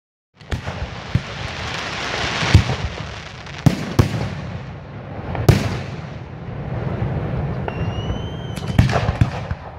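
Fireworks display: aerial shells bursting in a run of sharp bangs over a continuous crackle and low rumble. A brief, slightly rising whistle comes in about eight seconds in.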